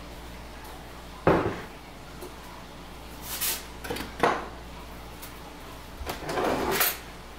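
Kitchen clatter of a mixing bowl and spoons on a granite countertop: a sharp knock about a second in, another about four seconds in, and some scraping near the end.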